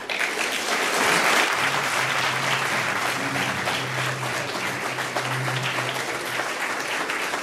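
Audience applauding, loudest about a second in and then easing slightly.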